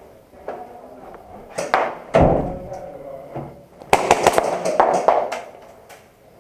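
Sharp knocks and clatter: a few clicks, a dull thud about two seconds in, then a quick run of sharp clicks and rattling lasting over a second.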